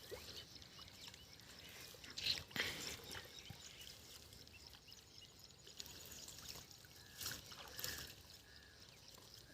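Faint splashing and sloshing of water as people wade in a shallow canal, with a few louder splashes about two seconds in and again near the end.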